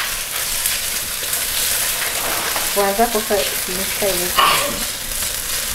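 Food sizzling steadily in a hot frying pan on a gas stove as it is stirred with a wooden spatula.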